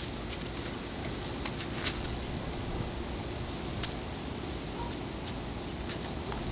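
Scattered sharp crackles and clicks, irregularly spaced, from a German Shepherd stepping and nosing about on ice-crusted snow and frozen grass as it works at a tennis ball, over a steady hiss.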